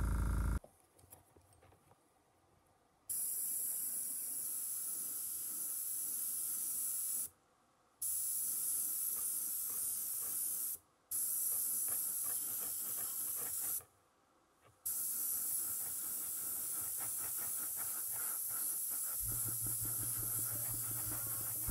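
Airbrush spraying paint onto a wooden crankbait: a steady airy hiss in several spells, each cutting off abruptly. A low steady hum comes in near the end.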